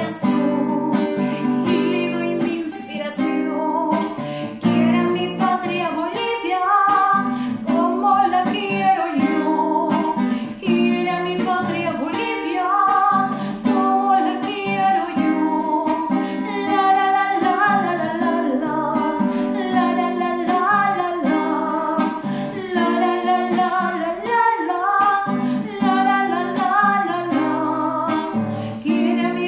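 A woman singing solo while strumming her own classical guitar in a steady rhythm.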